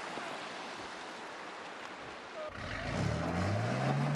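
Steady rush of a mountain waterfall. After a cut about two and a half seconds in, a rock-crawling pickup truck's engine revs up under load as it climbs a rock ledge, its pitch rising and then holding.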